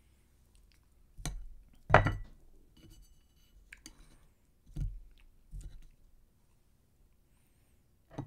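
A person chewing sausage, with about five sharp clicks and knocks from handling chopsticks and tableware; the loudest knock comes about two seconds in.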